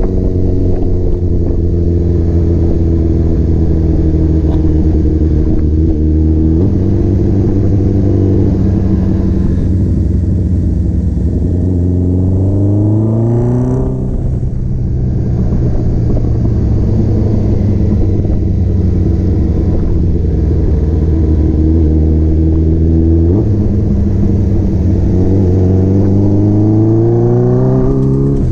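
Four-cylinder motorcycle engine running under way, heard from the bike itself. It shifts down about a quarter of the way in, revs up steadily and shifts up about halfway through, shifts down again later, and revs rise once more near the end.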